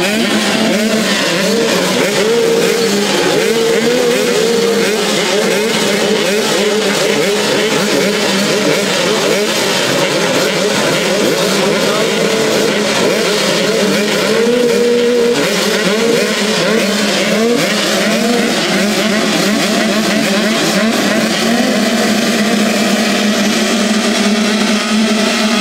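A full line of motocross bikes revving together at the start gate: many engines held at high revs at once, their pitches wavering up and down in a dense, steady drone as the riders wait for the gate to drop.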